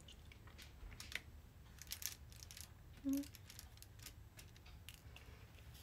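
Small, sparse clicks and taps of a diamond-painting drill pen picking up resin drills from a plastic tray and pressing them onto the sticky canvas. About three seconds in there is a short low hum.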